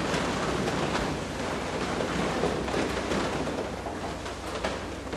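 A congregation speaking a prayer response together, the many voices blurring into a dense murmur in the reverberant church, over a low steady electrical hum.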